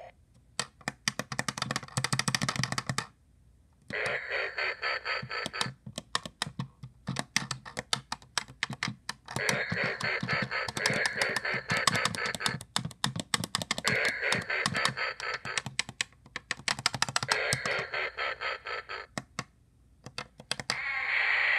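Goosebumps Haunted Headstone Game electronic toy playing its sound effects through its small speaker as its face buttons are pressed: about six bursts of one to three seconds each, over a dense, rapid crackle of clicks.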